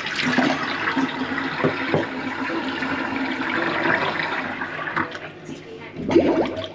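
Water rushing in a kitchen sink, starting suddenly and running for about five seconds before easing off.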